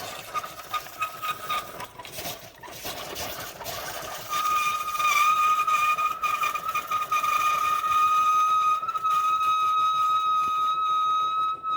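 Amazon Basics Dual Brew capsule coffee maker brewing a K-cup: hissing and sputtering at first, then about four seconds in a loud, steady high whistle sets in and holds, sounding like a subway. The machine is putting out only plain water instead of coffee.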